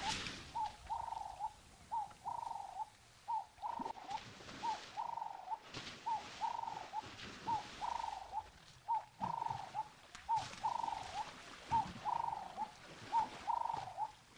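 A bird calling without pause: a short note followed by a longer hooting note at about the same mid pitch, the pair repeated about once a second.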